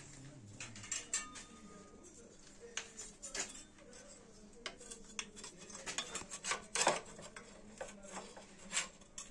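Light metallic clinks, taps and scraping as a stamped sheet-metal plate is fitted by hand against the diesel fuel filter and car underbody. There is a scatter of short knocks, the loudest about two-thirds of the way through.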